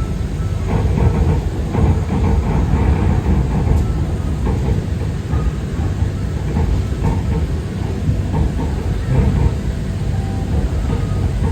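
Bangkok Pink Line monorail train running between stations, a steady low rumble of the rubber-tyred train moving along its beam, heard from inside the car.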